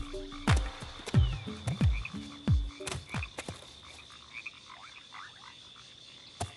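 Frogs croaking: a quick run of low calls, each falling in pitch, that stops about halfway through, leaving faint chirps over a steady high-pitched tone.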